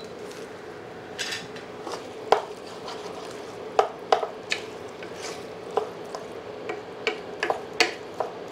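Wooden spatula stirring a thick onion-and-masala mixture in an open pressure cooker, knocking and scraping against the pot in irregular clicks over a faint steady hum.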